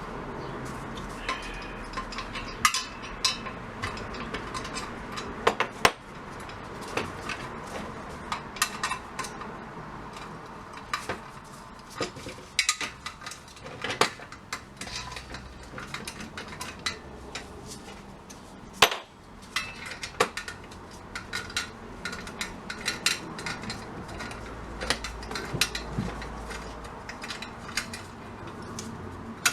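Irregular clinks, taps and knocks of small metal parts and tools being handled as a vintage jawbreaker vending machine is taken apart.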